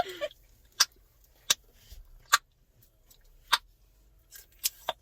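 Chewing gum being snapped and popped in the mouth: about six sharp pops at uneven intervals, roughly a second apart, with two close together near the end.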